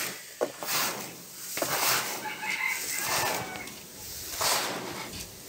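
Hands scooping and turning dry cracked-corn feed in a plastic tub, a rustling hiss of grain that comes in waves about once a second. A chicken calls faintly in the background about two seconds in.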